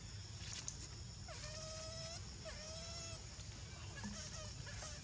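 Baby macaque crying: two long, drawn-out, steady cries in the first three seconds and a shorter, fainter one about four seconds in.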